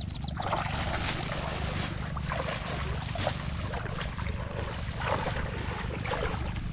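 Wind buffeting the microphone as a steady low rumble, over water splashing and sloshing in irregular bursts.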